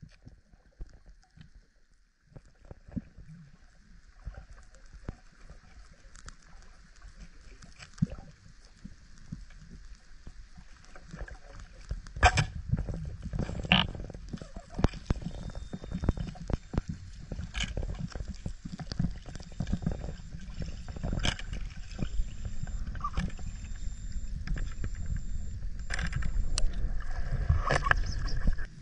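Underwater sound of a diver descending: scattered sharp clicks and knocks over a low rumble of moving water, which grows clearly louder about twelve seconds in.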